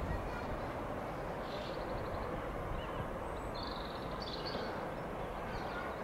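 Steady low background noise of an outdoor station, with a few faint bird chirps about one and a half seconds and about three and a half to four seconds in.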